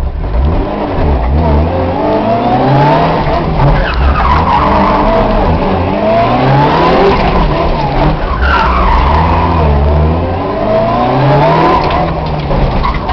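A Mitsubishi Lancer Evolution's turbocharged 2.0-litre four-cylinder engine, heard from inside the cabin, revving up and down several times as the car spins donuts. The tyres squeal and skid on the tarmac, loudest about four and eight seconds in.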